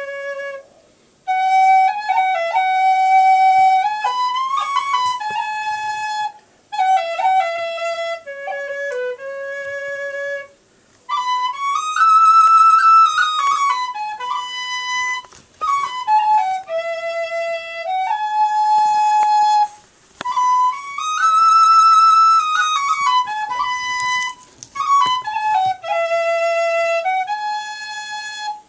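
Tin whistle playing a slow Irish air: a single slow, ornamented melody of long held notes, in phrases broken by short pauses for breath.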